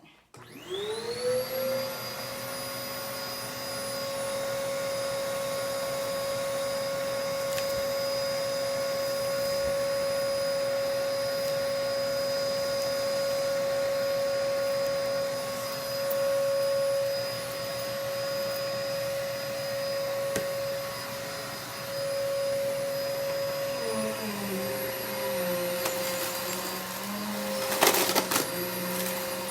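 Vacuum cleaner switched on, its motor spinning up with a rising whine and settling into a steady running tone. About twenty-four seconds in, the sound drops and wavers as it works the carpet. A brief rattle comes near the end.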